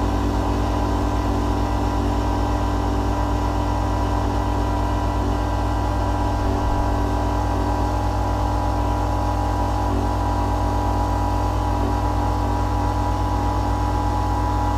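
Rainman watermaker's motor and high-pressure pump running steadily, a constant hum with a mix of steady tones, while it pushes seawater through the reverse-osmosis membranes.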